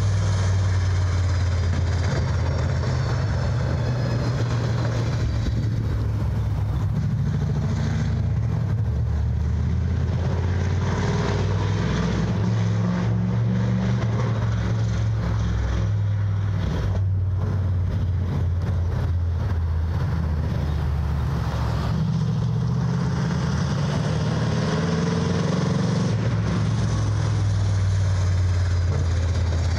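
Dirt-track stock car's engine running as it laps the oval, its pitch rising and falling through the throttle on the straights and corners; it is loudest as the car goes past near the start and again near the end.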